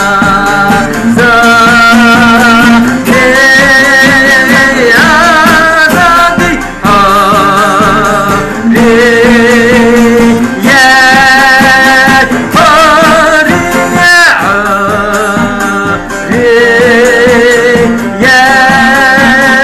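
Music from a Kurdish-Arabic protest song: a melody of long, slightly wavering held notes over steady accompaniment, with no lyrics made out.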